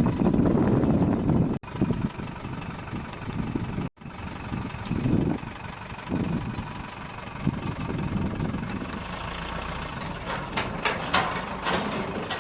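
Heavy diesel machinery engine running, broken twice by brief drops to silence in the first four seconds, with several sharp knocks or clatters near the end.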